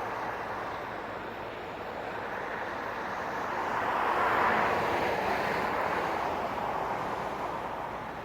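Heavy vehicle running: a steady rushing noise that swells about four seconds in and then eases off.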